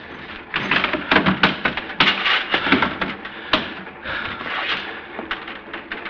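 Radio-drama sound effect of a trunk being broken open and searched: a dense, uneven run of sharp knocks, cracks and rattling clatter, as of wood and fittings being forced.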